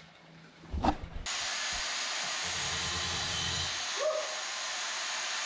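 A single knock about a second in, then an angle grinder running free with a steady hissing whir before it bites into the steel bracket.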